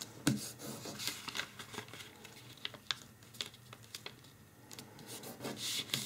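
A square of origami paper being folded corner to corner and creased along its diagonal: faint paper rustles and a scatter of small crackling clicks, with a louder rub near the end as fingers press along the fold.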